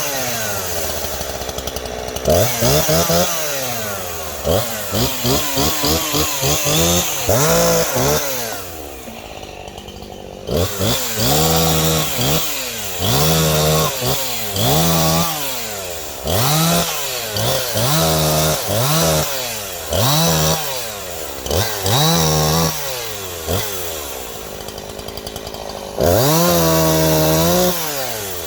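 Old Husqvarna 340 two-stroke chainsaw, a saw not run for years, being revved over and over, its pitch rising and falling about once a second. Twice it drops back to a lower idle for a couple of seconds, and near the end it holds high revs for about two seconds.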